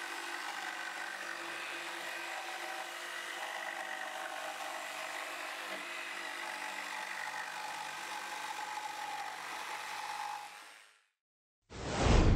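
Mafell P1CC corded jigsaw running and cutting through thick chipboard, a steady motor and blade sound that fades out about ten seconds in. Near the end a loud boom begins.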